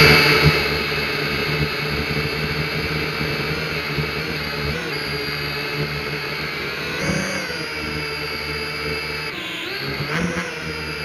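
Steady mechanical whir of a running motor or engine: several steady tones that dip and rise in pitch together a few times.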